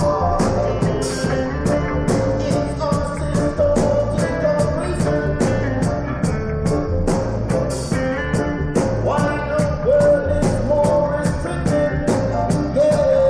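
Live band playing a reggae-style tune: a steady drum beat with cymbal strokes about two or three times a second under bass, guitar and a held, bending lead melody.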